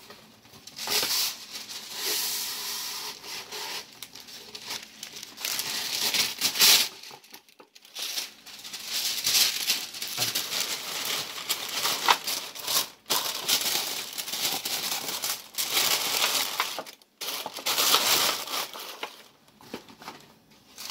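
Wax paper crinkling and rustling in irregular bursts with short pauses as it is pulled, measured and handled to line a pan.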